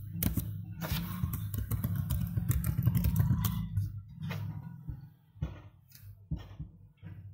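Typing on a computer keyboard: a quick run of keystrokes, then a few scattered key clicks after about four seconds, over a steady low hum that fades at about the same time.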